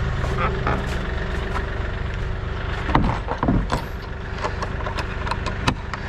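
A tractor engine idling steadily. About three seconds in, a large wooden barn door is swung with a creak, followed by clicks and knocks as its metal latch is worked.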